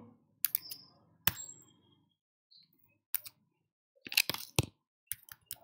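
Scattered sharp clicks and taps of a stylus on a drawing tablet: a few single taps in the first half, then a quick cluster about four seconds in and a few more near the end.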